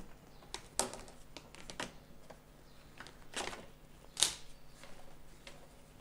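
Clothes being lifted out of the spin tub of a Godrej semi-automatic top-loading washing machine: scattered rustles and light knocks, about four louder ones, with the spin motor stopped at the end of its cycle.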